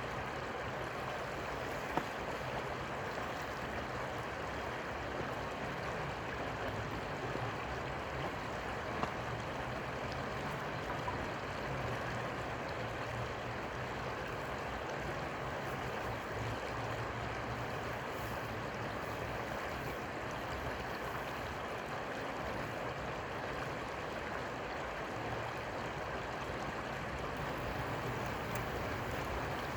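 Steady rush of flowing river water, with a faint low hum underneath and a few small clicks.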